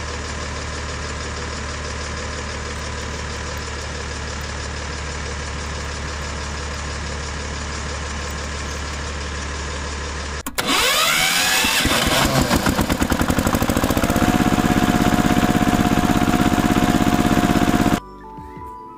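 Tractor engine sound effect laid over the toy play. A steady engine idle runs for about ten seconds. It then switches abruptly to a louder engine sound that glides in pitch as it starts and settles into a rapid chugging pulse, and this cuts off sharply near the end.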